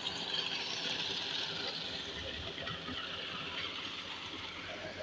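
Steady rushing of water pouring into a concrete channel, churning white.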